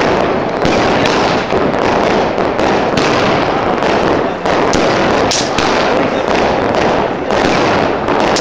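Fireworks going off in a dense, unbroken barrage of overlapping bangs and crackling from aerial bursts and firecrackers.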